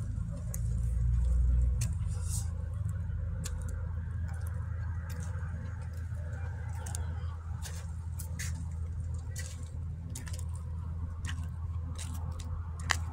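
Footsteps crunching on packed snow and ice, irregular crunches about twice a second, with a sharper click near the end, over a steady low rumble.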